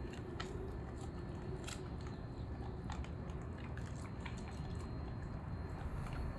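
A German shepherd chewing and eating, with scattered small clicks and crunches over a low steady background.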